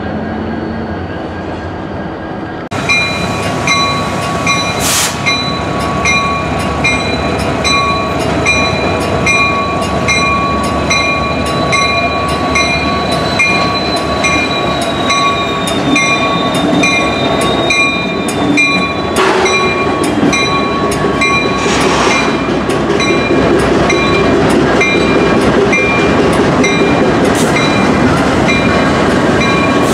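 Union Pacific diesel locomotives rolling slowly past at close range, engines running. A steady ringing is broken about twice a second over the rumble, and there are a few short hissing bursts.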